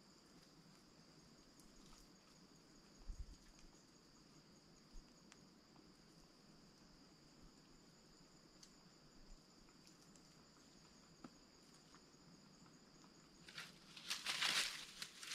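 Insects giving a steady high-pitched drone, with faint clicks and snaps of twigs. Near the end, a loud burst of rustling leaves and twigs as a branch is pulled and shaken.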